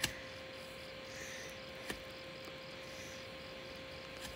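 A hoe blade chopping into clay soil, three short strikes about two seconds apart, over a faint steady trill of insects.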